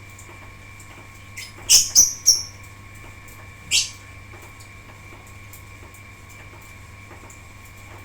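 Lovebirds giving short shrill chirps: three in quick succession about two seconds in, and one more near four seconds.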